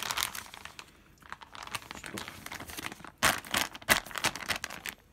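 Clear plastic bag of thawed cabbage kimchi crinkling as fingers squeeze and handle it, in irregular crackles, loudest from about three seconds in.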